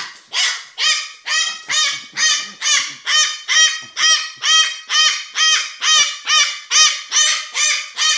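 A pet parrot screaming: a long, steady run of loud, harsh calls, a little over two a second, each one rising and then falling in pitch.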